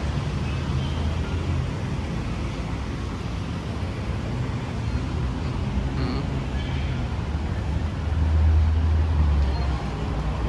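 Steady road traffic noise with a low engine rumble, which grows louder for a couple of seconds about eight seconds in as a vehicle passes close.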